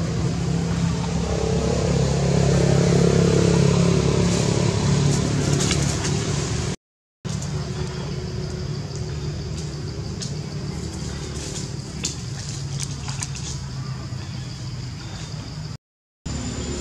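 Steady low drone of a running engine, swelling about two to four seconds in. It drops out to silence twice, briefly, near the middle and near the end.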